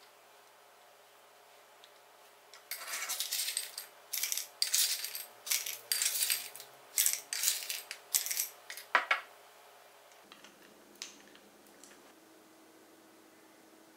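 Lumps of rock sugar scooped with a wooden spoon from a ceramic bowl and dropped into a glass jar: a run of irregular clattering scrapes and clinks starting about three seconds in and lasting about six seconds, ending with a sharp click.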